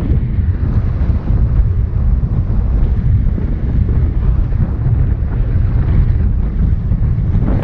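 Wind buffeting a GoPro's microphone in paraglider flight: a steady, heavy low rumble of wind noise.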